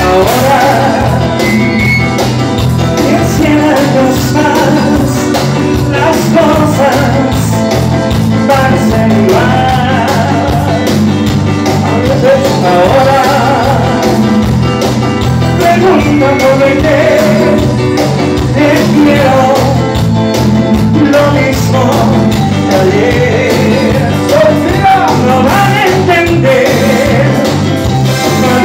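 Live band playing a Latin-style song with a steady beat and lead singing over it, the congas, drum kit and guitar of a small band.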